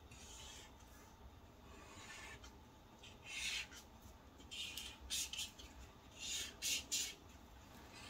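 Felt-tip marker rubbing over paper in a series of short, faint strokes, about seven of them, starting about three seconds in, as a numeral is drawn.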